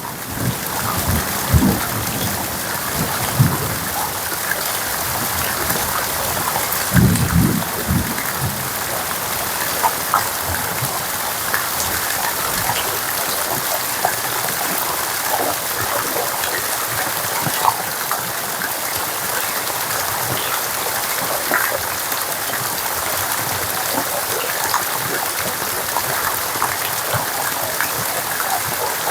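Steady rain falling, with scattered individual drops ticking, and brief low rumbles about a second in and again about seven seconds in.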